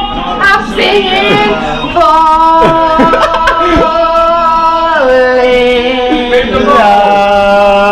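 Karaoke singing: a woman sings loudly along with a song, holding several long notes.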